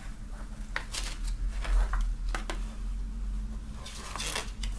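Paper pages of a thin comic booklet being leafed through by hand: scattered soft rustles and light taps, with a longer sliding rustle near the end, over a low steady hum.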